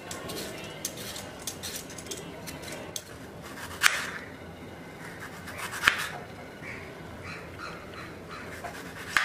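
Raw potatoes being peeled with a hand peeler, scraping, and then sliced with a knife on a plastic cutting board, with a couple of sharp knocks of the blade reaching the board.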